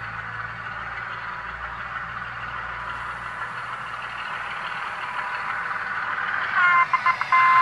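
Sound-fitted (DCC) model diesel locomotive, its engine sound running steadily and growing louder as it approaches. Near the end its horn sounds loudly, breaking up briefly.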